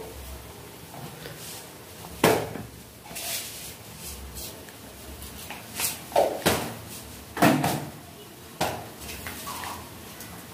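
Kitchen handling noises at a gas stove: about half a dozen separate knocks and clatters of utensils and containers, the first about two seconds in and the rest bunched between about six and nine seconds.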